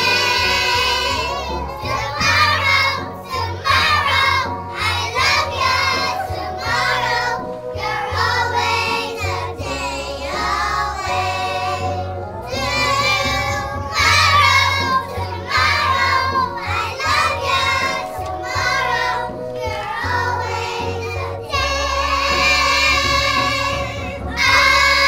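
A group of young girls singing a song together over a musical accompaniment with a steady bass.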